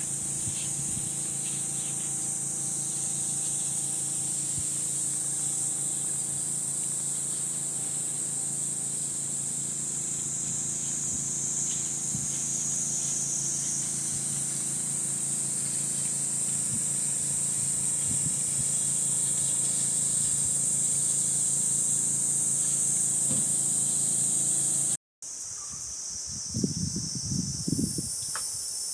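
A chorus of cicadas in a steady, shrill drone. Near the end it cuts out for an instant and comes back, and a few soft thumps follow.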